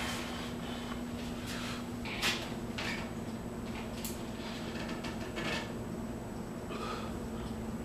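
Light rustles and small knocks from a person moving about and handling a rubber resistance band and its handles, with one sharper knock a little over two seconds in, over a steady low hum.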